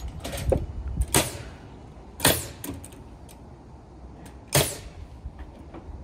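Carpentry work on wood: a handful of sharp, irregularly spaced knocks with a short ring, the loudest about a second, two seconds and four and a half seconds in.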